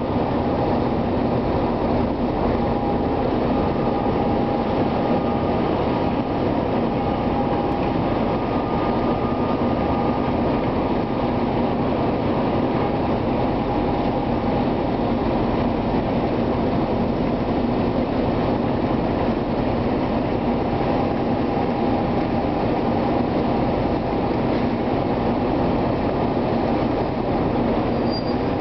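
Diesel freight locomotive running as it slowly hauls a train through a rail yard: a steady engine drone with a faint whine that comes and goes.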